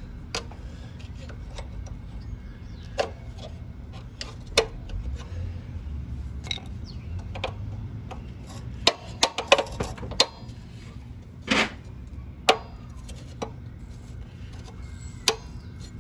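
Sharp metal clicks and clinks from the rear brake torque arm of a 1968 Honda CT90 being worked off its stud on the brake panel by hand. They come one at a time, with a quick cluster about nine seconds in and louder knocks near the end.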